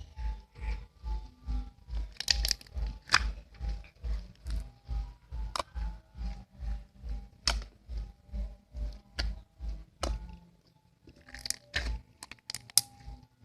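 Slime being handled, with sharp crackling and popping clicks, over background music with a steady beat that drops out briefly near the end.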